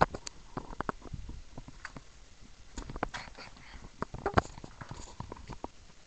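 Handling noise: irregular knocks, taps and rubbing as a hand-held camera is moved about among large inflated rubber balloons, with the loudest knocks at the start and about four seconds in.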